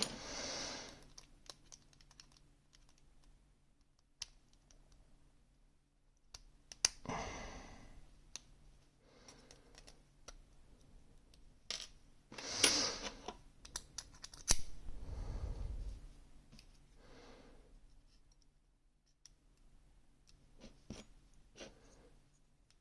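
Gerda Exxo lock being taken apart by hand: scattered small metallic clicks and taps of the lock's parts and tools, with a few longer scraping sounds.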